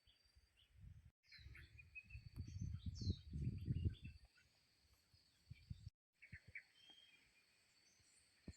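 Forest ambience: scattered bird chirps over a steady high insect drone, with low rumbling thuds through the first half. The sound cuts out briefly twice.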